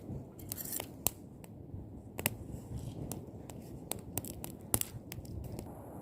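Campfire crackling: wood popping in irregular sharp snaps, a few louder than the rest, over a low rumble.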